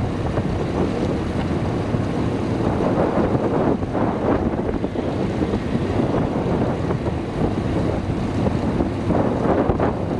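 Wind buffeting the microphone: a steady, fairly loud rushing noise that gusts up and down, heaviest in the low end.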